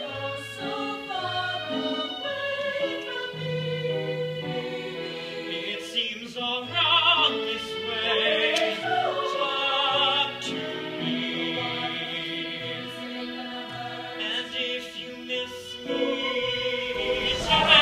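A young male solo singer performing a show tune on stage, with instrumental accompaniment under his held and changing notes.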